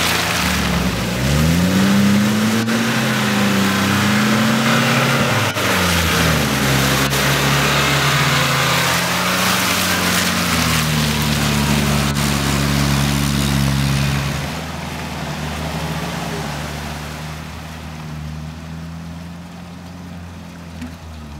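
Suzuki Samurai 4x4 revving hard as it drives through deep mud, its engine note rising and falling, with tyres churning and mud spraying. After about fourteen seconds the engine settles to a quieter, steadier run.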